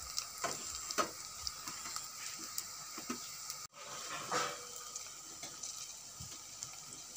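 Rice-flour-battered okra pakoras deep-frying in hot oil in a kadhai: steady sizzling with small crackles and pops. The sound cuts out for an instant just past halfway.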